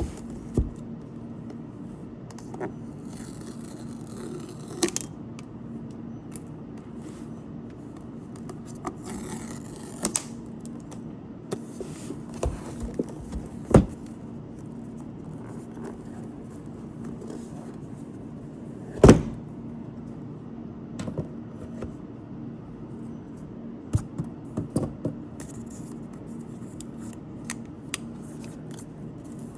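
Box-unboxing handling sounds: scattered taps, scrapes and rustles of packaging being opened and handled, with one louder knock about two-thirds of the way through, over a steady low hum.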